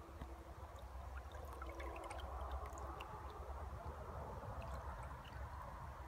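River water flowing and gurgling softly, a steady rushing hiss with scattered small clicks, over a steady low rumble.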